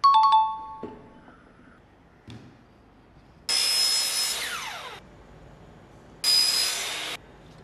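A short bright chime right at the start, then a power miter saw cutting through PVC pipe twice: the first cut about three and a half seconds in, its motor pitch falling as the blade winds down, and a shorter second cut near the end that stops suddenly.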